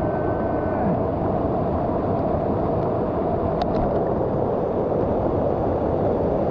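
Waterfall water pouring and splashing in a steady, loud rush, heard from right in the falling water.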